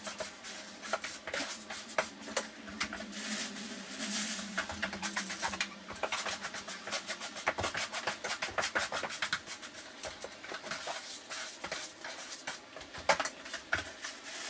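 Broom bristles sweeping spent cat litter across a bare hardwood floor: a run of quick, irregular scratchy strokes with gritty clicks of litter granules.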